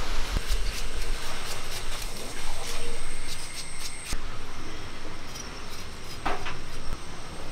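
A knife slicing through onions held in the hand: a run of crisp cuts, about three a second, thinning out over the last few seconds, with a faint steady high-pitched whine behind them for the first half.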